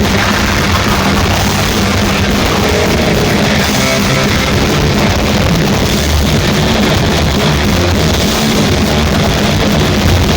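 Heavy metal band playing live at full volume, with electric guitars and a drum kit, loud and unbroken throughout.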